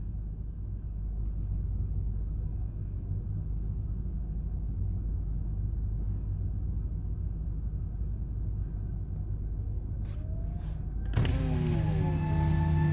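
Steady low hum inside a car. Near the end, a Sterling M-3 outdoor warning siren begins winding up: its rising tone turns suddenly louder and levels off into a steady wail.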